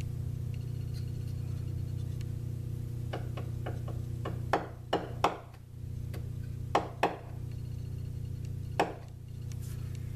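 A hand-held metal block knocks against a workpiece clamped in a lathe chuck, tapping it over to take out runout shown on a dial indicator. A few light taps come first, then three sharp hard strikes in quick succession, two more, and a last one, all over a steady low hum.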